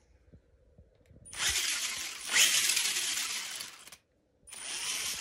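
Absima AT3.4 V2 truggy's brushed electric motor and 4WD drivetrain spinning the wheels in the air under throttle, in two bursts. The first starts about a second in, lasts nearly three seconds and rises partway through; the second starts near the end after a brief stop. The motor is running the wrong way, because the throttle channel is set reversed.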